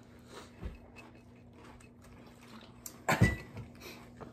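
Quiet room tone with a faint low thump, then one sharp knock on the table about three seconds in.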